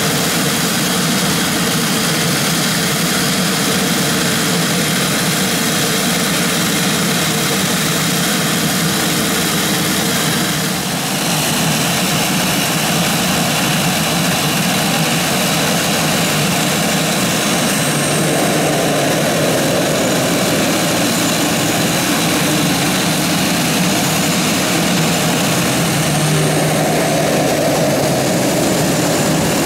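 Pilatus PC-21 turboprops running at low power on the ground: a steady propeller drone under a high turbine whine. One aircraft starts to taxi. There is a brief dip in level about eleven seconds in.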